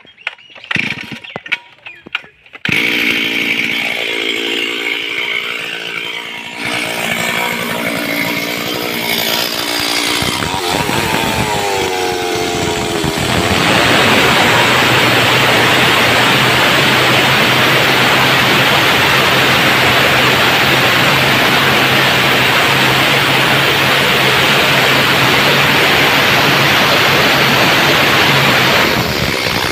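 Stihl two-stroke chainsaw being started: a few short tugs on the starter cord, then the engine catches and runs. About ten seconds in it revs up and down. From about fourteen seconds it runs at a steady high pitch, ripping lengthwise along a log under load, and near the end it is let off.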